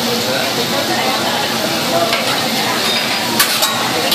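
Chicken and steak sizzling on a flat steel teppanyaki griddle, with metal spatulas scraping and clicking against the plate; the sharpest clicks come twice about three and a half seconds in.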